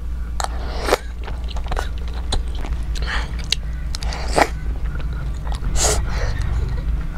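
A person biting and chewing food, with irregular wet clicks and smacks over a steady low hum.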